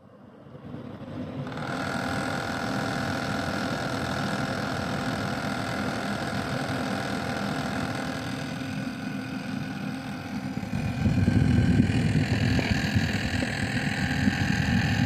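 A Rise Mode 240mm all-in-one water cooler starting up as the PC is switched on, then running loud and steady: a whine of several tones over a low rumble. The rumble grows louder about eleven seconds in. It is the noisy pump that the owner says has got tractor-loud over the last months.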